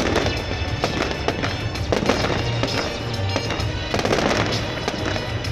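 Fireworks going off in rapid crackling pops and bangs, with music playing underneath.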